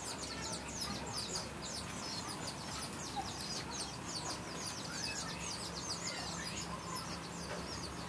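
Many birds chirping together, a dense and continuous run of short, high, falling chirps, several each second.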